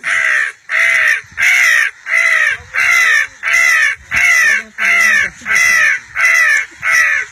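A boy imitating a crow's caw with his voice, calling crows in: eleven loud, evenly spaced caws, about three every two seconds.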